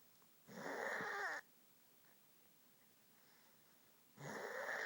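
A sleeping person snoring: two drawn-out snores about three and a half seconds apart, the second rising in pitch.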